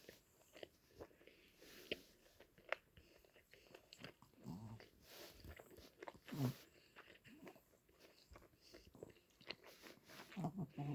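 Close-miked chewing and biting of a hotbar, a skewered fried fish-cake bar, with many small wet mouth clicks and smacks.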